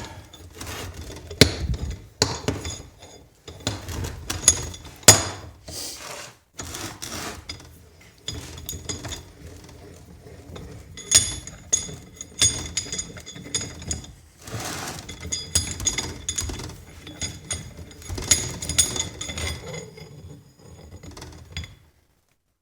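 Irregular metallic clanks, knocks and rattles, some with a short ring, as the screw of an old vise is unscrewed all the way out. The clanking stops near the end.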